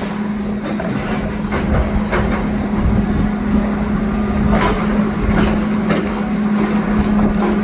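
Demolition excavator's diesel engine running with a steady hum, with irregular knocks and cracks of rubble being handled.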